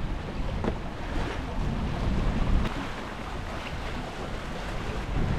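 Wind buffeting the microphone over the steady wash of waves along a sailboat's hull as it sails through a moderate sea.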